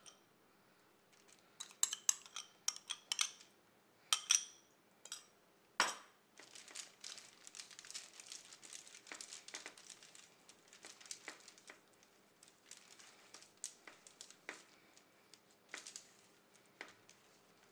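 A metal spoon scraping and clinking against a glass bowl in quick clusters, then a single knock a little before six seconds in. After that, aluminium foil crinkling steadily under hands rubbing marinade into halved oyster mushrooms on a foil-lined tray.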